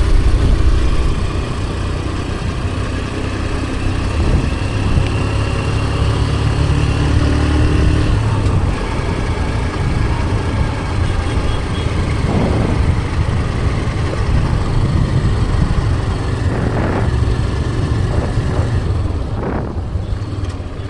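Motor vehicle engine running steadily on the move along a road, heard with a heavy low rumble; the engine note shifts about eight seconds in.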